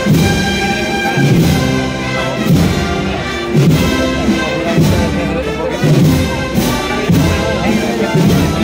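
Wind band of brass, woodwinds and percussion playing a processional march, with held brass chords over a beat struck about once a second.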